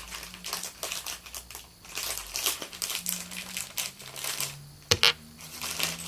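Crinkling plastic packaging and small hardware parts being rummaged through by hand, with irregular rustles and light clicks and one sharper click about five seconds in.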